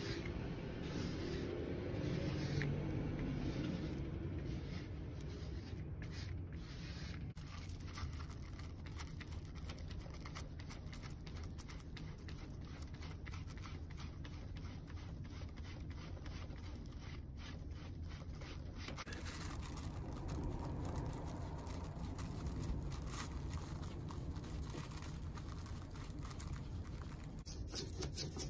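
Printing ink being scraped and rubbed onto a textured collagraph plate, spread with a small card and wiped back with a rag, over a steady low hum. Near the end a rhythmic rolling begins as a rubber brayer is rolled back and forth through yellow ink on a glass slab.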